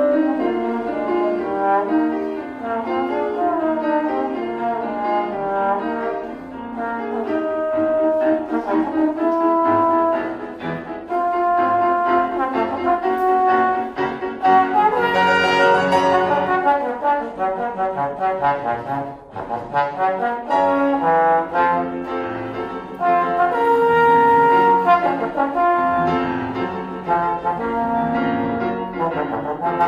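Trombone playing a melody of held and moving notes with grand piano accompaniment, with a short break a little past the middle.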